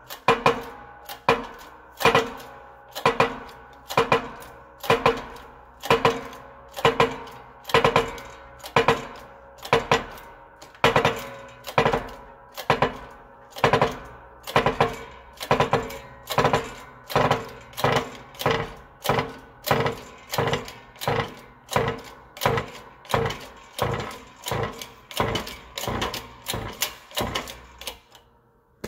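Hammer blows on steel, about two a second with a ringing note after each, driving the bearing shaft out of a John Deere 4440 water pump housing. The blows come a little faster and lighter towards the end and stop just before it finishes.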